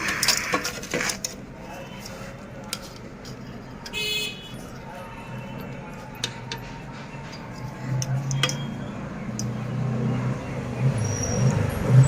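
Metal silencer parts clinking and knocking as they are handled and measured, a short horn-like beep about four seconds in, and a low engine hum that grows louder from about eight seconds in.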